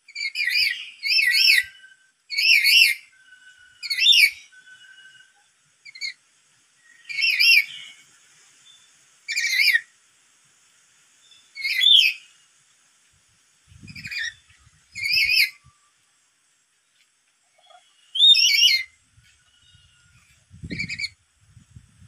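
Black-capped lory giving a series of about a dozen loud, shrill, warbling calls, each short and one to three seconds apart. Shrill calling like this is what the uploader takes as the sign of a lory provoked by a lure call.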